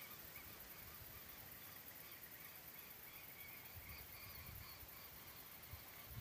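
Faint chorus of wild birds calling: short chirps repeating over and over, with a low rumble of wind or handling noise about four seconds in.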